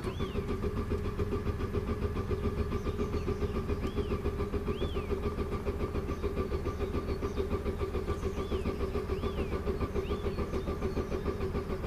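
Car engine being turned over by its electric starter without catching: a steady starter whine with even compression pulses, about five a second, that keeps going without the engine firing.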